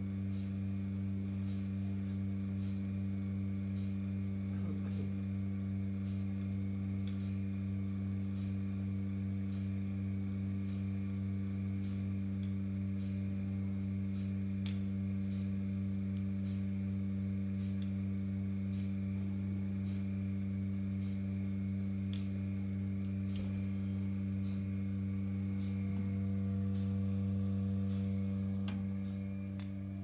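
Bucket milking machine running: a steady vacuum-pump hum with the pulsator clicking lightly at a regular pace.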